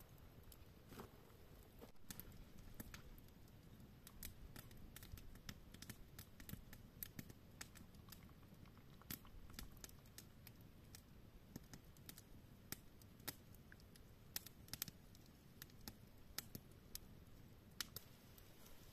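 Wood campfire crackling: irregular sharp snaps, sometimes several a second, over a faint low rumble.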